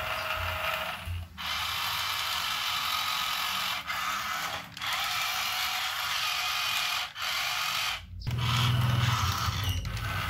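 Plastic toy dump truck's mechanism whirring and ratcheting in stretches of two to three seconds with short breaks. About eight seconds in, a low buzzing hum takes over.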